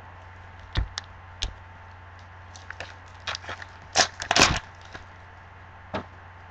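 Foil trading-card pack wrapper being torn open and crinkled in gloved hands: scattered crackles, loudest in a cluster about four seconds in, over a low steady hum.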